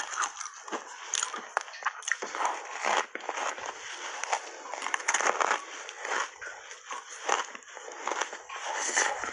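Ice coated in matcha milk powder being bitten and chewed: a dense, irregular run of crisp crunches and cracks, several a second.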